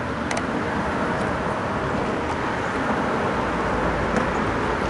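Steady road traffic noise, an even rush with no distinct events.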